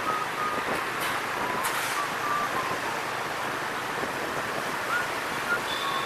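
Wind rushing over the microphone and road noise while riding a motorbike through city traffic, with a few faint short high beeps.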